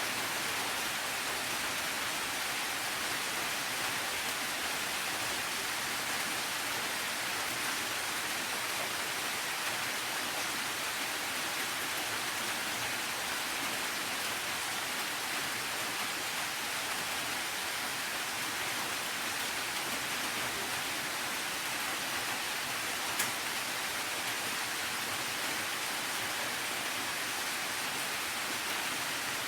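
Steady rain, an even hiss that does not change. Once, about two-thirds of the way through, there is a single sharp tick.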